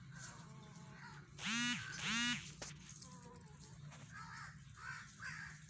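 Chickens calling: two loud, short, harsh squawks back to back about a second and a half in, each rising then falling, followed by softer clucking calls.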